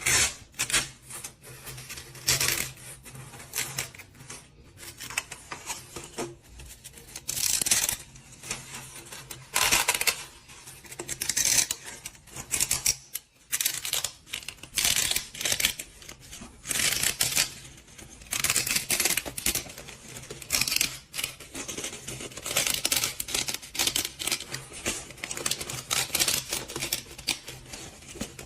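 Irregular scraping, rustling and clicking, in short uneven bursts throughout, like hands working on or handling small objects.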